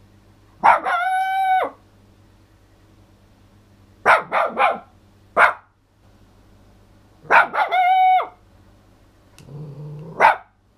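Brown toy poodle barking and howling: a held, high howl about a second long, a quick run of three short barks, a single bark, another held howl, and a last bark near the end.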